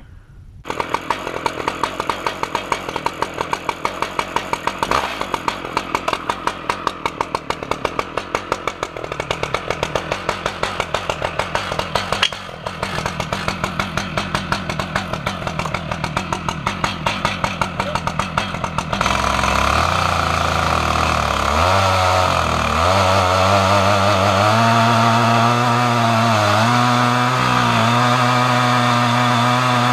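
Stihl MS 880 two-stroke chainsaw on a chainsaw mill idling with an uneven pulsing beat. About two-thirds of the way through it is opened up to full throttle and then runs steadily, its pitch wavering slightly under the load of ripping a large oak log.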